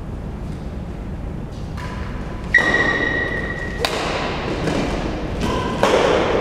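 Badminton rally: shuttlecock struck by rackets with several sharp hits, the loudest about two and a half seconds in and near the end, with high squeaks of shoes on the court floor between them.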